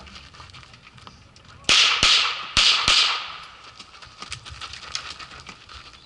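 Handgun fired four times as two quick double-taps, the first pair about a second and a half in and the second about a second later, each shot ringing out briefly. Fainter clicks and knocks follow.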